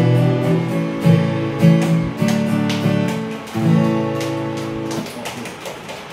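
Acoustic guitar strummed solo, a run of chords closing the song. The last chord is struck about three and a half seconds in and rings out, fading away by about five seconds.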